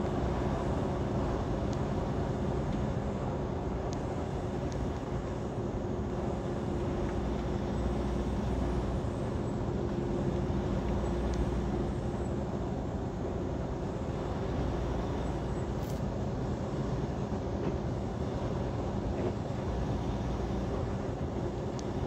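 Steady drone of a semi truck's diesel engine and its tyres on the road, heard from inside the cab while cruising on the interstate.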